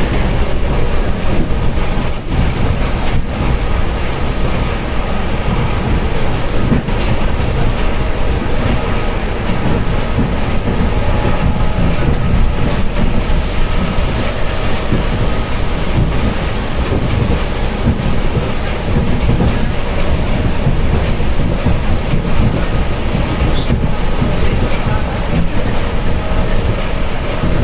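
Electric commuter train running at speed, heard from inside the carriage: a steady loud rumble of wheels on the rails with faint clicks and a few steady whining tones.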